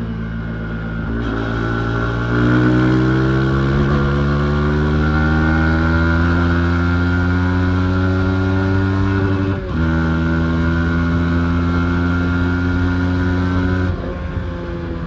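Yamaha MT-15's 155 cc single-cylinder engine pulling under acceleration, its pitch rising steadily through the revs. A quick upshift about two-thirds in dips the note, and it climbs again until the throttle closes near the end.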